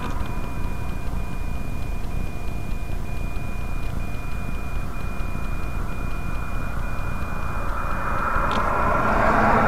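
Steady low rumble of the stopped car and wind at the roadside, with a faint high tone broken at even intervals. Near the end, the tyre and engine noise of a vehicle on the highway swells as it approaches.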